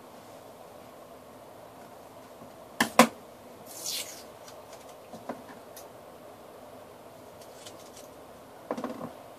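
Paper and masking tape being handled: two sharp clicks, then a short tearing hiss of tape coming off, and a few soft crinkles near the end.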